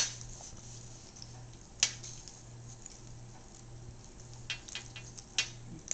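Mouth noises of eating corn on the cob: scattered sharp clicks and smacks of lips and teeth on the cob, a loud one at the start, another about two seconds in and a quick run of them near the end. A faint steady low hum underneath.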